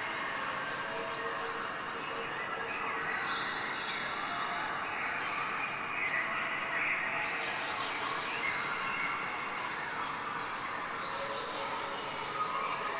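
Steady ambient noise, like a background soundscape, with faint higher calls that shift every second or two.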